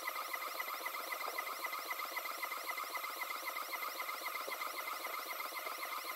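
3D printer's stepper motors whining as the print head traces the rectangular wall. The pitch rises and falls several times a second as the head speeds up and slows at each corner. The whine is sped up eight times, so it sounds high and warbling.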